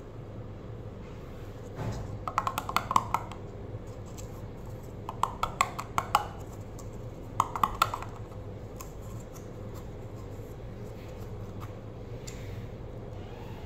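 Three short bursts of rapid metallic clicks and clinks from a round metal tin handled by gloved hands, over a low steady hum.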